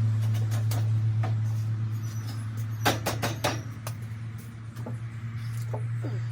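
Steady low electrical hum with scattered clicks and knocks, a quick cluster of them about three seconds in.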